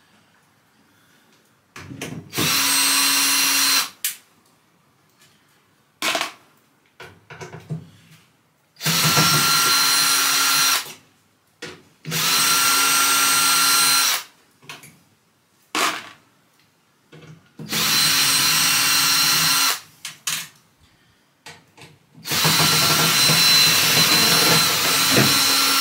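Cordless drill-driver running in five separate bursts of a couple of seconds each, backing the screws out of a microwave's sheet-metal outer casing. Short clicks and knocks come between the runs as the bit is moved from screw to screw.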